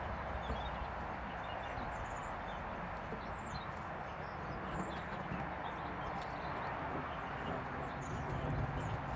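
Steady outdoor background hiss with scattered short bird chirps throughout.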